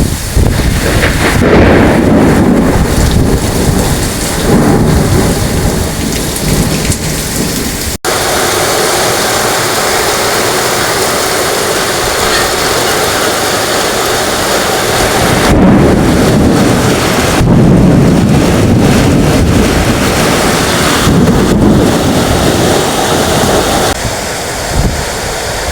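Heavy rain pouring steadily, with thunder rolling in long low rumbles. The rumbles are heaviest in the first several seconds and again from about fifteen to twenty seconds in.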